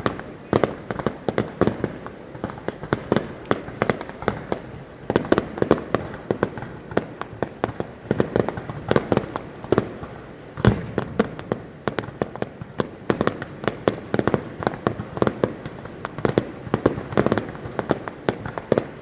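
Fireworks bursting overhead in quick succession: a dense string of sharp bangs and crackles, with one heavier boom a little past halfway.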